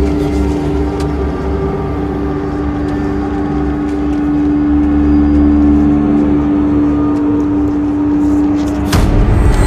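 A steady low drone over a deep rumble, cut by a sudden loud hit about nine seconds in.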